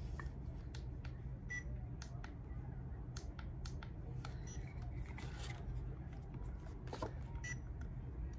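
Small plastic clicks and taps from a Feiyu Vlog Pocket 2 phone gimbal being handled, its clamp and arm adjusted to balance the phone, with two short high beeps and a steady low hum underneath.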